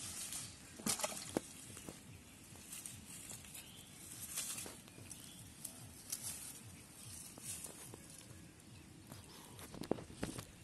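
Rustling and crunching of dry plant debris underfoot, with a few sharp handling clicks, over quiet rural outdoor background; the loudest rustles and clicks come in the first second or so and again near the end.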